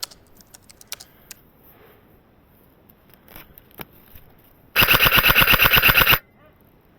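Airsoft gun firing one full-auto burst of rapid, evenly spaced shots lasting about a second and a half, near the end. Before it come a few scattered sharp clicks.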